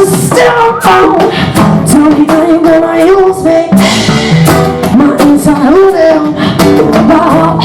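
Live acoustic band music: a sung vocal line over strummed acoustic guitar and hand percussion with a steady beat.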